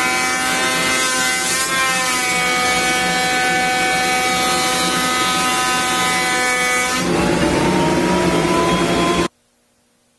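Benchtop thicknessing machine running with a steady, many-toned motor whine while a Sitka spruce guitar top is fed through. About seven seconds in the sound changes, with more low rumble and a rising pitch as the load comes off, and near the end it cuts off suddenly.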